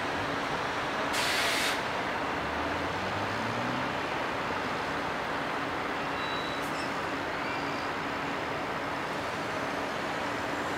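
An articulated lorry's air brakes give a short hiss about a second in. Its diesel engine then revs up with a rising pitch as it pulls away, over steady background noise.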